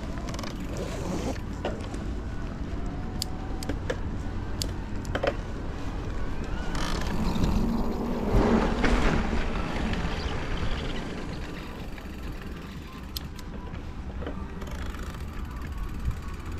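A bicycle being ridden along a paved path: steady wind and tyre rumble on the microphone, with a few sharp clicks and rattles from the bike over bumps. The noise grows busier about halfway through as the bike crosses onto rougher concrete.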